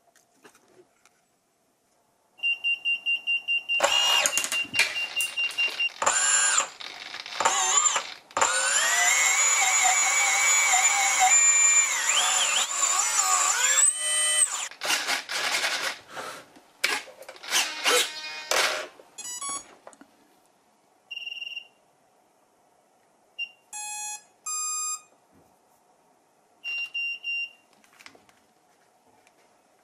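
Electronic beeps from the flying wing's speed controller and electronics as it powers up. Then the brushless motor whines while running, its pitch rising and falling with the throttle. Near the end come more short beeps, among them a stepped chime of several tones.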